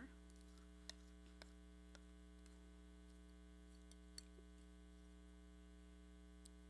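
Near silence: a steady electrical mains hum, with a few faint clicks.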